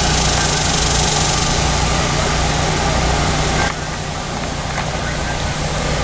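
A steady, engine-like low hum under a broad hiss, the hiss dropping slightly about two-thirds of the way through.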